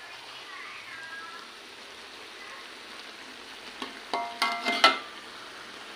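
Squid cooking in a pan of its own dark ink sauce, sizzling steadily. About four seconds in come a few short, louder sounds with a clear pitch.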